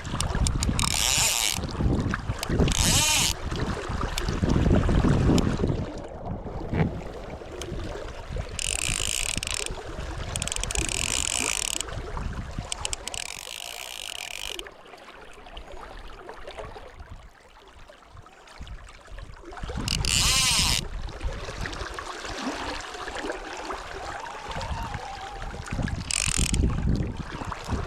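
Fly reel's click-and-pawl ratchet buzzing in short bursts, seven or so in all, as line is pulled off it, over a steady rumble of wind buffeting the microphone.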